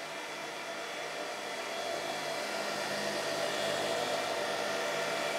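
Cooling fans of several running Bitmain Antminer ASIC mining rigs: a steady high-speed whir carrying a hum of fan tones, growing gradually louder.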